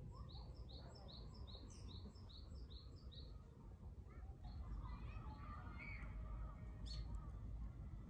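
A small songbird singing a fast run of high two-note phrases, about three a second, for some three seconds, then softer twittering calls, over a low steady background rumble.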